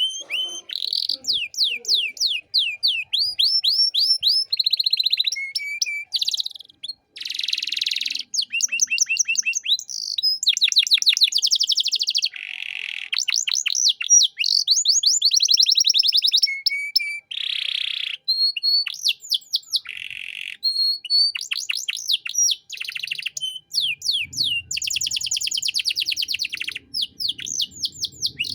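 Domestic canary singing a long, continuous song of fast trills, buzzy rolls and short clear whistled notes, changing phrase every second or two.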